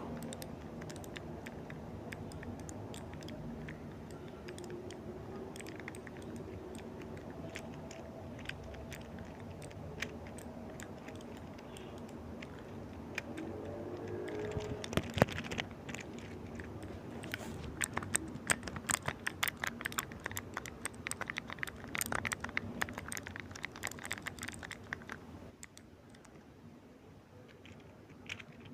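Irregular small clicks and taps over a steady low background hum, growing into rapid clicking in the second half and then thinning out near the end.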